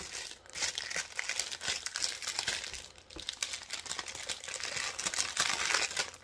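Thin clear plastic packaging crinkling and crackling as it is handled, with brief lulls about half a second and three seconds in.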